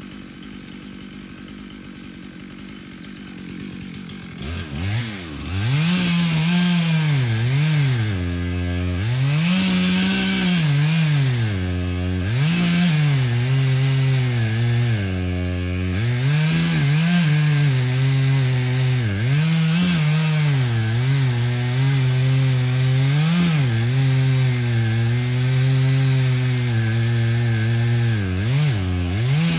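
Chainsaw idling for about four seconds, then throttled up and cutting wood, its engine pitch dipping and rising again and again as the chain loads up and frees in the cut.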